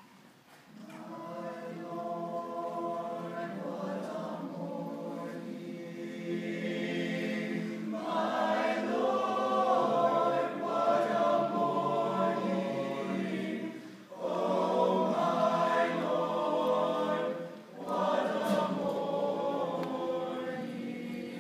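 Male choir singing in sustained phrases broken by short pauses, louder from about eight seconds in.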